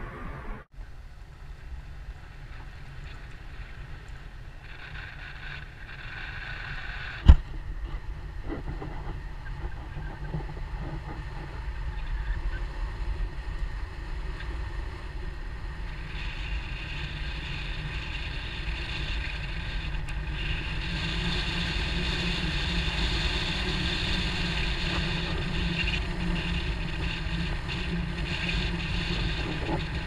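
Car driving along a narrow park road: steady tyre and engine noise with wind on the microphone. There is a single sharp click about seven seconds in, and the noise grows louder and hissier from about halfway.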